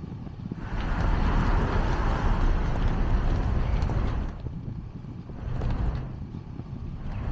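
A vehicle passing on the street, its tyre and engine noise swelling and fading over about three and a half seconds, followed by a shorter, fainter pass near the end, over a constant low rumble.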